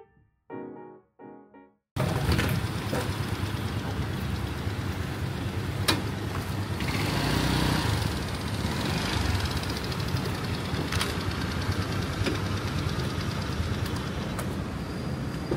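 Piano music ends about two seconds in. It gives way to a steady rumble of motorbike engines and street traffic, with a few sharp clicks.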